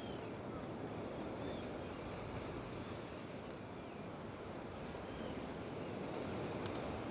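Steady outdoor rushing noise, with a few faint short chirps and a soft click near the end.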